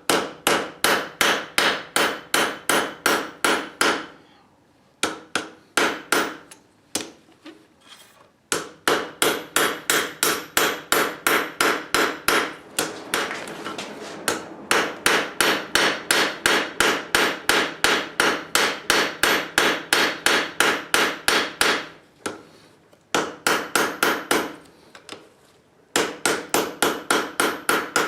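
Blacksmith's hammer striking hot steel on an anvil, forging a bottle opener. The blows come in steady runs of about three to four a second, broken by short pauses, and the anvil rings at each blow.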